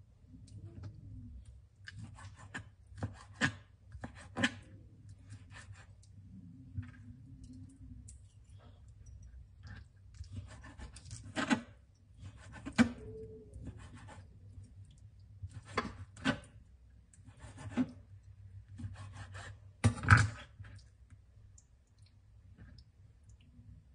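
Large kitchen knife cutting raw chicken breast on a plastic cutting board: irregular knocks of the blade against the board, the loudest about twenty seconds in, with softer slicing and rubbing between. A faint low hum runs underneath.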